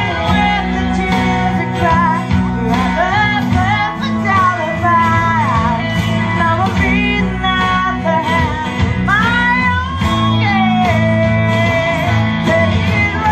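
A woman singing a country-style song into a microphone, her melody sliding and wavering in pitch, over a steady guitar-led accompaniment.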